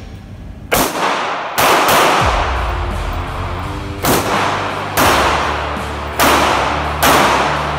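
Pistol shots in an indoor shooting range: about six sharp, irregularly spaced reports, each with a long echo. Background music with a steady bass comes in about two seconds in.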